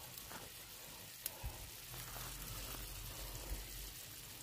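Water heating in a pot used as a double boiler for a glass measuring cup of candle wax, giving a faint steady hiss, with a couple of light clicks a little over a second in and another near the end.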